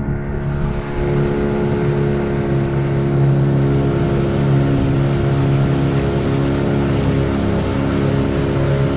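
Motorboat engine running steadily while under way, with a continuous rushing hiss over the drone.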